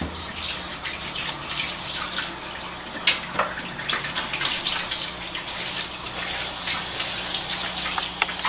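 Kitchen sink tap running while hands are washed under it, water splashing, with a sharp knock about three seconds in.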